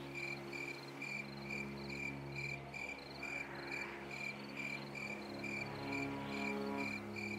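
Crickets chirping steadily, about two chirps a second, over a low sustained music drone.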